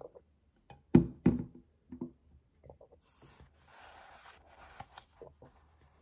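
Desk-handling sounds: a few dull knocks of objects set down or bumped on a desk, the loudest about a second in. Then about two seconds of paper rustling, as of a book page being turned, and a few light clicks near the end.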